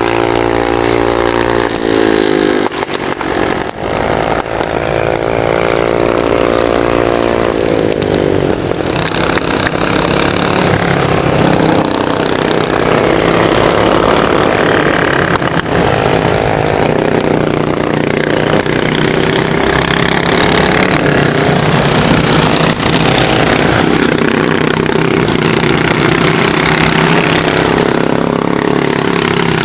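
Kart engine running at race speed, its revs climbing and dropping repeatedly as it accelerates and lifts off, over a steady rushing noise.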